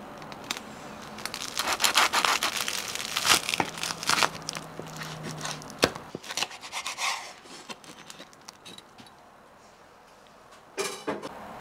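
Knife cutting a sandwich in half on a wooden cutting board: crunchy crackling and scraping as the blade saws through the toasted bread crust, then it quietens.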